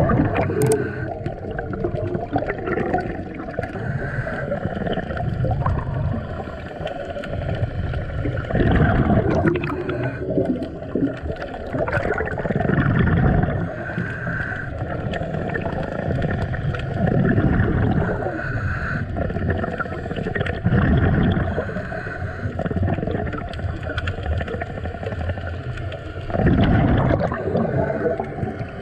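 Scuba diver's breathing through a regulator, heard from an underwater camera: bubbling exhalations surge up every four to five seconds over a steady underwater rumble.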